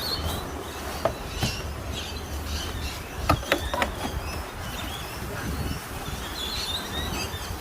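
Outdoor ambience with a steady low rumble of wind on the microphone, a handful of short knocks and clicks, and faint bird chirps near the end.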